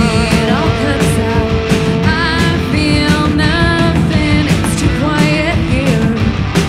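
Rock band playing live: a woman singing lead over electric guitars, bass guitar and a drum kit.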